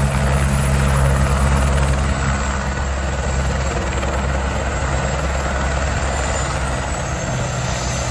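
Helicopter running close by: a steady low rotor and engine sound with a hiss above it, easing slightly after about two seconds.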